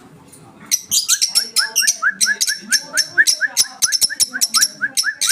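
Lovebirds chattering: a dense run of shrill, rapid chirps that starts about a second in, with a short rising note repeated about five times a second.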